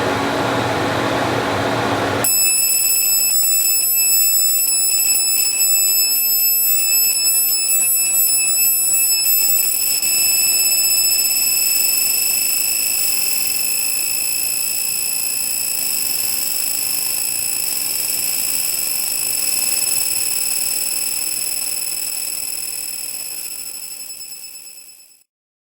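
Industrial laser engraver marking a metal AR-15 lower receiver: a loud, steady high-pitched whine with overtones. It starts about two seconds in, after a brief rush of fan-like noise, and cuts off abruptly near the end.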